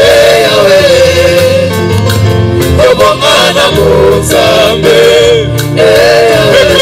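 Gospel worship song performed live: male and female voices singing together into microphones over a band with guitar, bass and drums, cymbals marking the beat.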